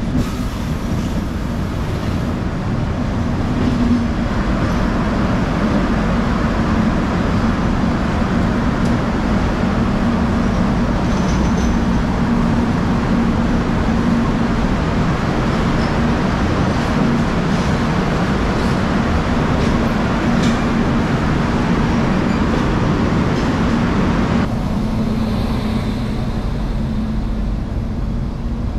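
Kirandul Express passenger train running through a tunnel, heard from an open doorway between coaches: a steady, loud noise of wheels on rails and the moving train. About 24 seconds in, the sound thins out and drops a little.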